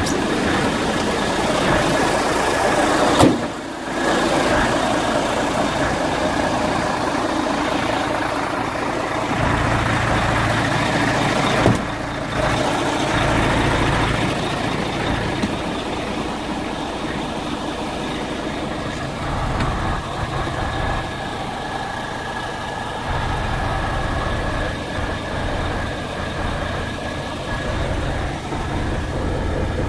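Mercedes-Benz 4141 tipper truck's V6 diesel engine idling steadily, heard inside the cab. A sharp knock comes about three seconds in and another about twelve seconds in.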